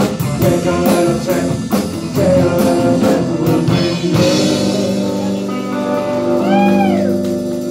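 Live band of acoustic guitar, electric guitar, bass and drums playing. About four seconds in, the drums stop and a chord is held and rings on, with a few notes swooping up and back down.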